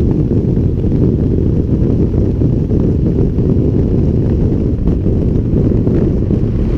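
Wind rushing over the bike-mounted camera's microphone on a motorcycle riding at motorway speed, a steady low rumble with no distinct engine note.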